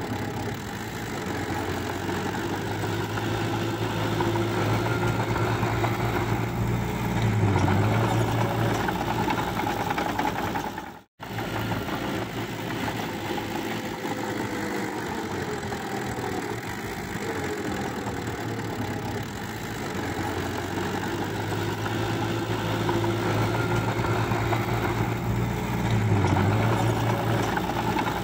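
Small crawler bulldozer's diesel engine running with a clattering note, getting louder and labouring twice as the blade pushes mud. The sound cuts out for a moment about eleven seconds in.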